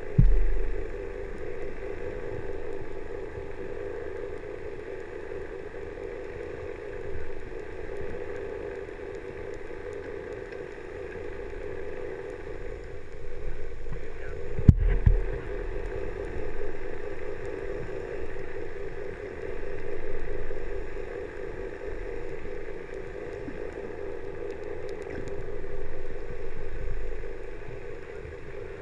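Muffled underwater sound picked up by a submerged camera in its waterproof housing: a steady low hum with dull thumps near the start and about fifteen seconds in.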